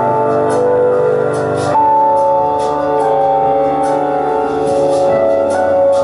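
Live electric keyboard music: held chords with a piano-like tone, moving to a new chord about two seconds in, with light ticks in the high end.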